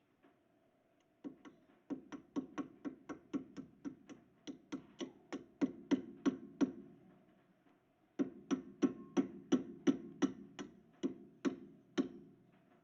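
Metal hammer taps, about three a second in two runs with a short pause between, each tap ringing briefly: a part being tapped into place in the rear brake drum hub.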